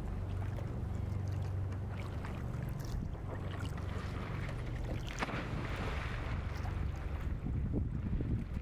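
Open-water ambience: a steady low rumble with water sounds, and a rush of splashing about five seconds in as an e-foil rider falls off his board into the water.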